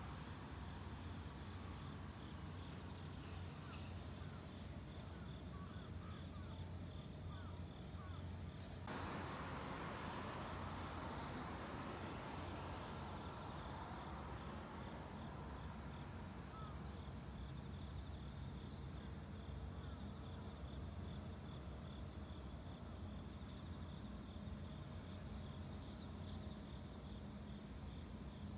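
Faint outdoor ambience of insects chirring steadily in fine rapid pulses over a low steady hum. About nine seconds in, a broad rushing noise comes in suddenly and fades away over several seconds.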